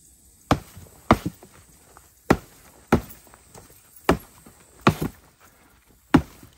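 Boots kicking at a dug-up bamboo clump: about eight heavy thuds at uneven intervals, a couple of them in quick pairs.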